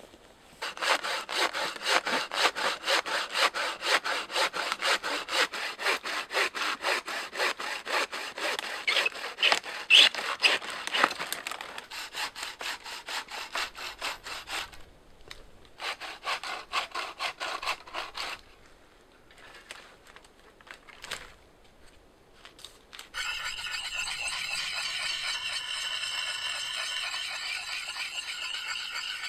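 Wooden frame saw cutting through a branch with fast, even back-and-forth strokes. The sawing pauses briefly about halfway, resumes for a few seconds, and gives way to a few scattered knocks. In the last six seconds a steady, higher sound takes over.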